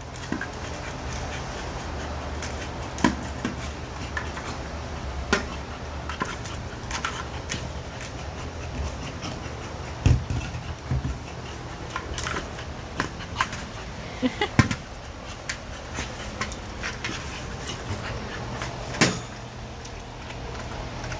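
A dog playing by herself with a ball: scattered knocks and thumps as she pushes it about, the loudest about halfway through and again near the end, over a steady low hum.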